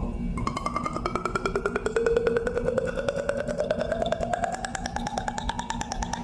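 Game sound effect of a filling score meter: a single tone gliding slowly and steadily upward over fast, even ticking.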